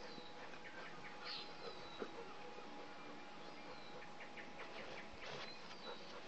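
Bernese Mountain Dogs play-wrestling on grass, with a short scuffling sound about five seconds in. Small birds chirp a few times, thin and high.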